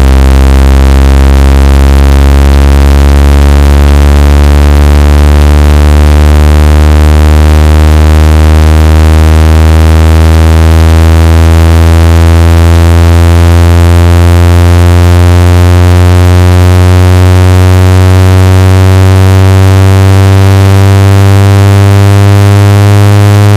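Speaker-cleaner tone: a loud, distorted low buzzing tone with many overtones, played to shake water or dust out of a phone speaker. Its pitch creeps slowly upward.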